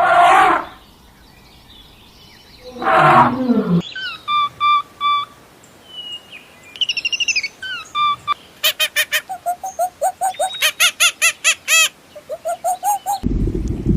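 Two loud animal calls, the second falling in pitch, then a bird chirping in short repeated notes that turn into a fast run of chirps about halfway through. Near the end, low wind noise on the microphone takes over.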